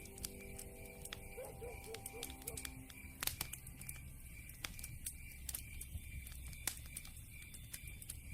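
Campfire crackling, with irregular sharp pops and snaps, the loudest a little over three seconds in. Soft held tones and a faint, evenly repeating high chirp run beneath.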